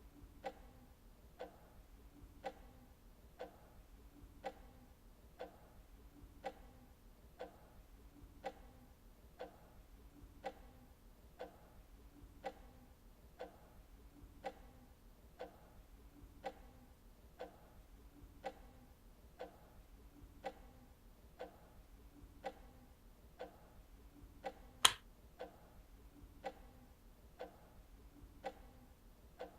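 Clock ticking steadily and faintly in an even tick-tock, about two ticks a second, with one much louder sharp click near the end.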